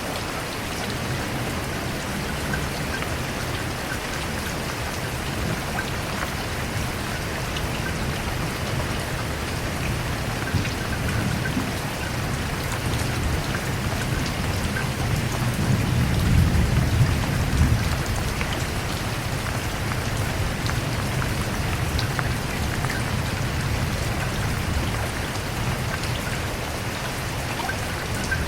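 Steady rain falling, a continuous hiss with scattered drop ticks. A low rumble underneath swells a little past the middle and eases off again.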